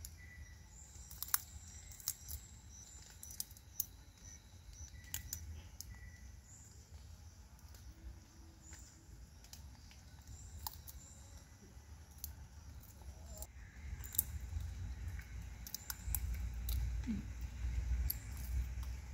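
Scattered small sharp clicks as a baby macaque cracks sunflower seeds open with its teeth and handles the shells, over a low rumble that grows louder in the last few seconds.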